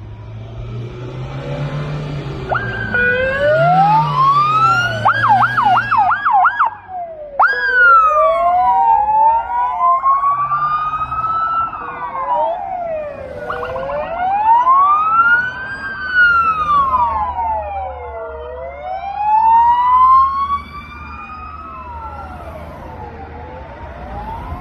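Two or more police vehicle sirens wailing together, rising and falling out of step, with a rapid yelp about five seconds in, over the rumble of passing vehicles. The sirens turn quieter for the last few seconds.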